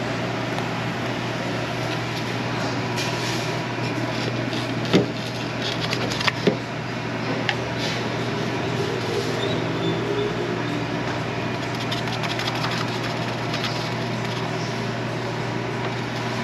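Steady low machinery hum, with a few short sharp knocks and clinks about five to eight seconds in, from ingredients going into a plastic blender jar.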